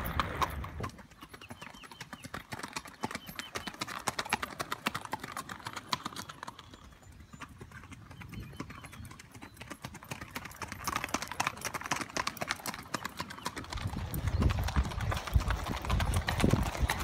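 Hoofbeats of a spotted mountain saddle horse mare under a rider: a quick, steady clip-clop. It fades in the first second and stays faint as she moves off, then grows louder again from about two-thirds of the way in as she comes closer on hard pavement.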